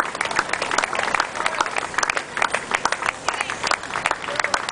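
A few spectators applauding, quick and uneven hand claps.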